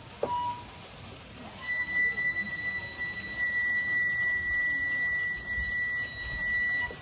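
A short beep just after the start, then a steady, high-pitched electronic tone that comes in about a second and a half in, holds for about five seconds and cuts off suddenly near the end.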